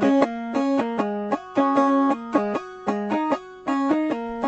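Instrumental music: a plucked string instrument playing a melody of short, separate notes.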